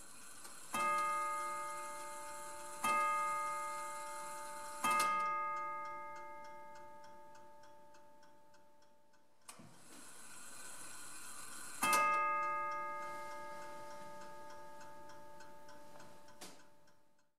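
Seth Thomas Tambour No. 1 mantel clock striking: three strikes on its gong about two seconds apart, then after a pause a single strike, each left to ring out and fade. The movement ticks steadily underneath.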